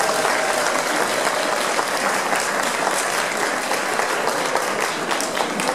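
Audience applauding steadily at the end of a Tsugaru shamisen piece.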